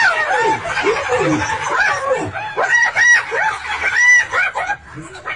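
A frenzy of overlapping high-pitched yelps, squeals and twittering calls from a pack of African wild dogs attacking a hyena. The calls rise and fall several times a second, briefly easing just before the end.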